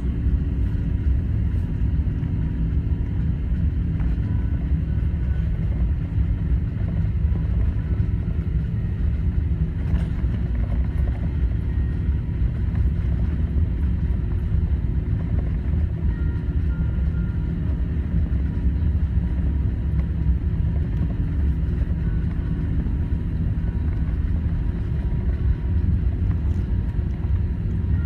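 Steady low rumble of an Airbus A380's Rolls-Royce Trent 900 engines and airframe heard inside the cabin over the wing during takeoff.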